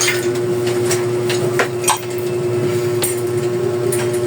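Sharp, irregular clicks and taps of small metal bicycle parts being handled as a brake cable and its housing are fitted, over a steady hum.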